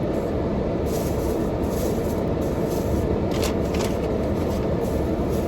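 Air-conditioning fan blowing steadily on a high setting, a constant low rush, with a few brief rustles of a shopping bag being handled.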